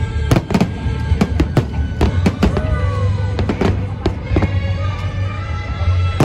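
Aerial firework shells bursting in quick succession, sharp bangs about two or three a second. Underneath runs loud music with held tones and a deep bass.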